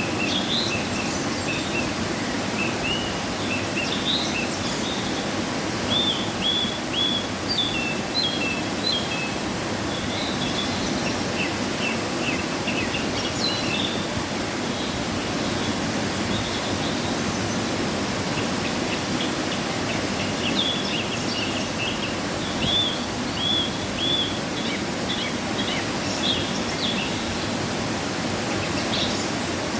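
Waterfall running heavily after rain, a steady, unbroken rush of falling water. Small birds chirp over it in short repeated calls, pausing for a few seconds about halfway through before starting again.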